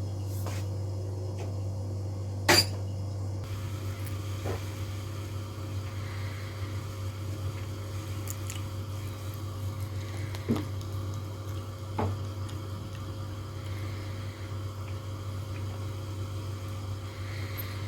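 Saucepan of milk heating toward the boil on a butane gas stove: a steady low hum with four light knocks.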